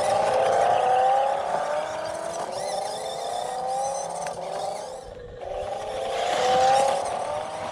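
Toy RC monster truck running, its whine climbing in pitch over and over, about once a second, with a short drop in level about five seconds in.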